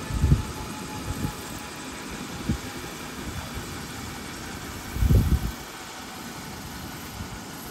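Airbus EC135 helicopter on the ground after landing, its twin turbine engines running steadily while the main rotor turns slowly. A few irregular low thumps come through, the loudest about five seconds in.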